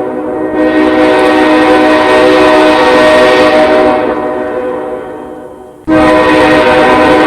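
Very loud sustained multi-tone horn chord holding steady pitches, fading away over about two seconds and then cutting back in abruptly at full strength near the end.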